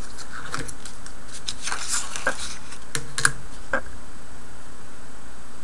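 Scattered light clicks and taps as a clear ruler and pencil are handled and repositioned on a cutting mat, stopping a little before four seconds in, over a steady hiss.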